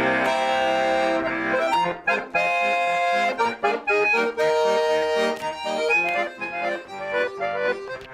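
Garmon (Russian button accordion) playing a song's instrumental introduction: one chord held for about two seconds, then a melody over rhythmic bass-and-chord accompaniment.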